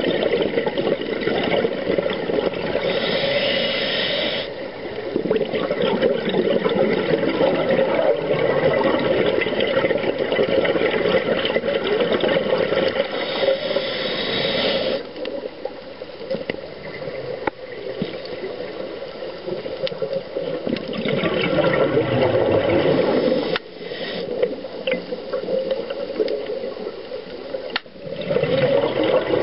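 Underwater rush of a scuba diver's breathing, heard through the camera housing: regulator hiss and bubbling exhalations, broken by short lulls between breaths.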